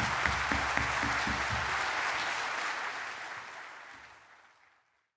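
Audience applauding, the clapping fading out to silence about four to five seconds in.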